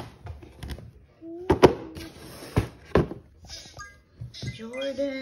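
A sneaker being handled and set down on its cardboard shoebox: a series of sharp knocks and thumps, two close together about a second and a half in and more around three seconds, with some rustling between.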